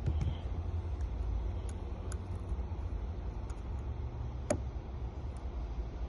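Steady low background rumble with a few faint scattered clicks, one sharper click about four and a half seconds in.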